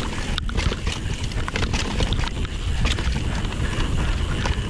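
Wind buffeting an action camera's microphone on a fast downhill mountain-bike run, a steady low rumble, with the tyres on the rough dirt trail and the bike rattling in frequent sharp clicks and knocks.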